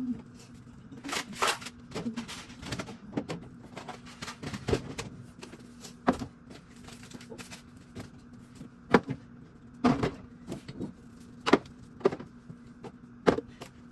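Scattered knocks and clicks, a few sharper ones in the second half, over a steady low hum.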